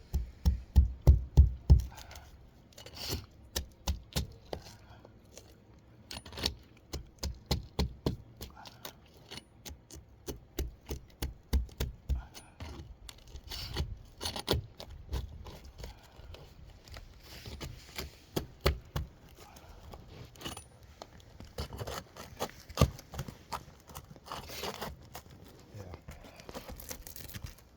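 A hand tool knocking and scraping under asphalt roof shingles to break their seal strip and get at the nails. It comes in runs of quick, sharp taps with scraping between them, the loudest run in the first couple of seconds.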